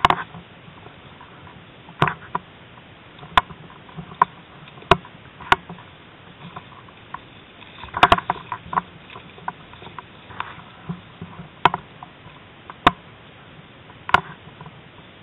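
A series of sharp clicks and snaps at irregular intervals, roughly one a second with a quick cluster about eight seconds in, over a steady hiss.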